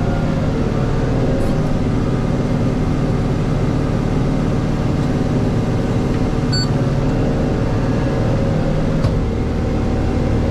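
Oliver 1755 tractor engine running steadily under load while pulling a round baler through a hay field. The engine note shifts slightly near the end, and there is one short electronic beep about two-thirds of the way through.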